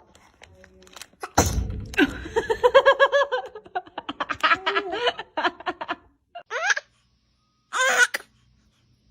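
A baby sneezes about a second and a half in, then high-pitched laughter comes in quick pulses. A second sneeze follows near the end.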